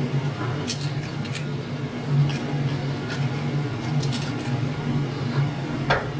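Light clicks, scrapes and rubbing as a cloth wipes a milling vise's steel jaws and metal parts are handled in them, with a sharper metal clink near the end. A steady low machine hum runs underneath.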